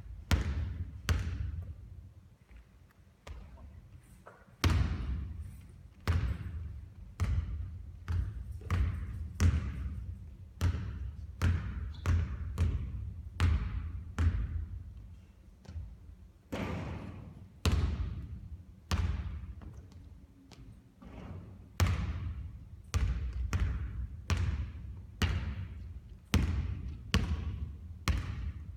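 Basketball bouncing again and again on a court floor, a sharp thud about once a second, sometimes two close together, each with an echoing tail.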